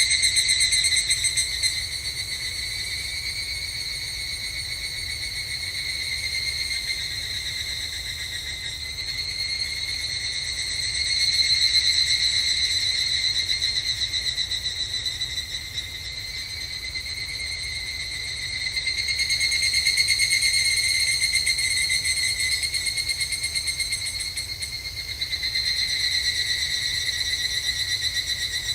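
Evening cicadas (higurashi, Tanna japonensis) calling in an overlapping chorus, a fast pulsing trill. The chorus swells louder and fades back several times as individual calls come and go.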